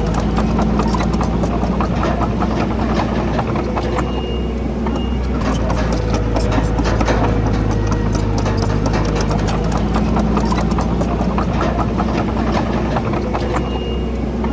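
Crawler bulldozer's diesel engine running steadily with a low drone, under a dense, continuous rattle of clicks and knocks.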